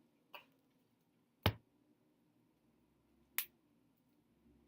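Cellophane wrapping on a card deck being picked at and pulled off: three sharp isolated snaps, the loudest about a second and a half in, with little else between them.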